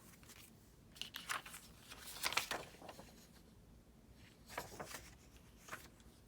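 Paper rustling in short bursts as small sheets of book pages and printed paper pieces are handled and shuffled.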